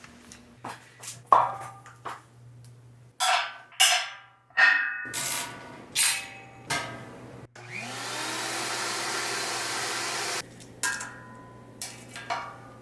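Steel bar stock clanking and ringing as it is handled, with several separate knocks. About halfway through, an electric motor spins up with a rising whine, runs steadily for about three seconds and cuts off suddenly. Then come a few more metal clanks.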